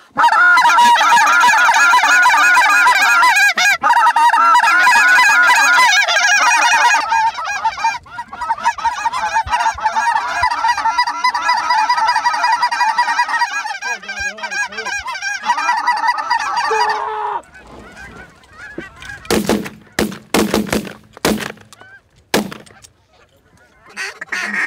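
Canada goose calls blown hard by hunters in the pit blind: loud, fast honking and clucking for about seven seconds, then softer calling until about 17 seconds in, then a few short, sharp notes. This is calling aimed at geese flying over the decoys.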